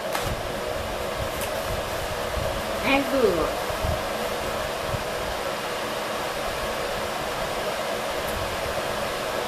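Steady whirring of a running fan. About three seconds in, a short vocal sound falls in pitch.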